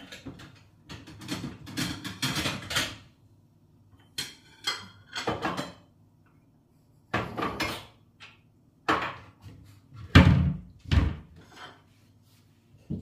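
Dishes and kitchenware being handled on a kitchen counter: a series of clinks and knocks in short clusters, with the heaviest pair of knocks near the end.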